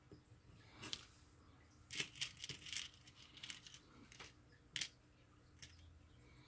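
Small 5 mm LEDs rattling and clicking against a plastic compartment box as they are picked out by hand, in several short bursts.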